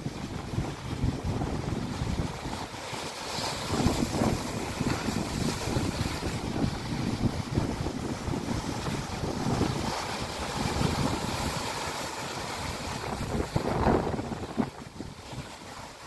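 Sea waves breaking and washing over shoreline boulders, a steady rush of surf that swells louder about four seconds in and again near the end, with wind buffeting the microphone.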